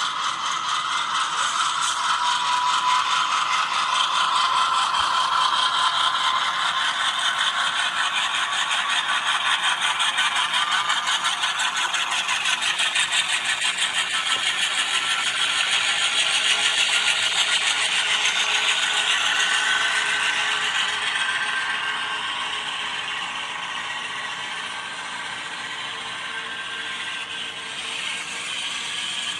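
HO scale model train rolling along the track: a steady, fast rattling clatter of small wheels and running gear, which gets quieter about two-thirds of the way through.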